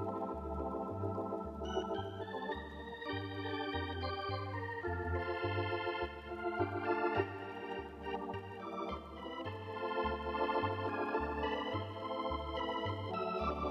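Organ music: sustained chords that shift every second or so over a steadily pulsing bass line.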